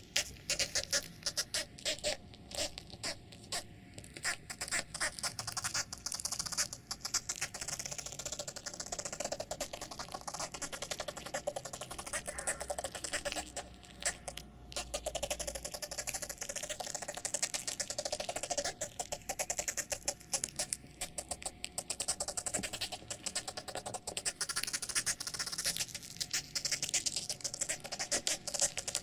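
Sound effect billed as ants: a continuous, dense crackle of tiny rapid clicks and scratches, mostly high-pitched, swelling and easing in waves.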